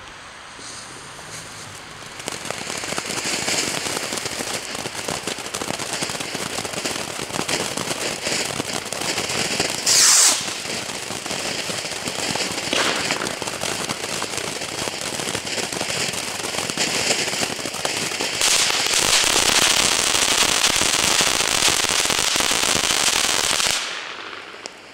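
'Böse Lehrer' volcano ground-fountain firework burning: a dense, steady rushing hiss of sprayed sparks. It starts about two seconds in, has a short louder burst about ten seconds in, grows louder about two-thirds of the way through, and stops abruptly a second before the end.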